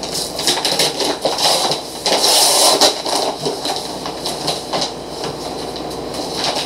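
The paper wrapper of a ream of copy paper being torn open and pulled off the stack, with irregular crackling and rustling that is loudest about two seconds in.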